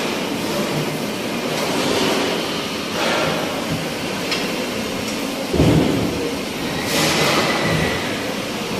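Steady loud rumbling hiss of slaughterhouse background noise, with a louder low rumble coming in a little past halfway.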